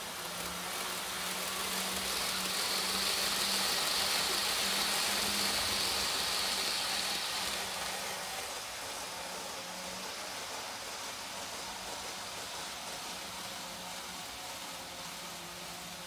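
TOMIX N-gauge model trains running on the layout track: a steady rolling hiss of wheels on rail with a low motor hum, swelling over the first few seconds and easing back after about eight seconds.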